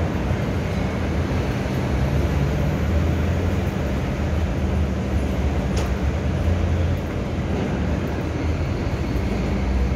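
Steady city street traffic noise, with buses and cars running on the road and a low, steady engine hum underneath.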